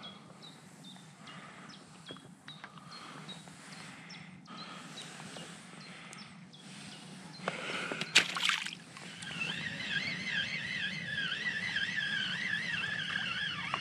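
Dawn riverbank ambience: small birds giving short falling chirps over light water lapping and sloshing. About eight seconds in comes a brief, loud splashing clatter, and after it a steady warbling, wavering whistle-like tune runs on.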